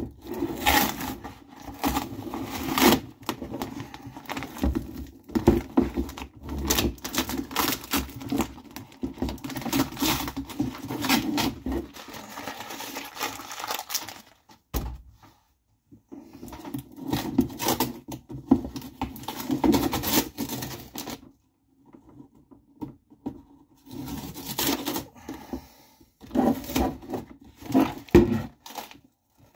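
Masking tape being peeled off a hard plastic RC car body, with irregular crackling and crinkling as the tape tears away and is balled up, and small knocks as the body is handled. There are a couple of short pauses.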